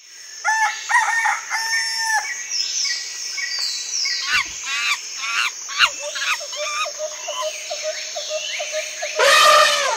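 Jungle ambience: many birds chirping and calling over a steady high insect drone, fading in at the start. About nine seconds in, a loud, harsh, drawn-out animal call cuts in over it.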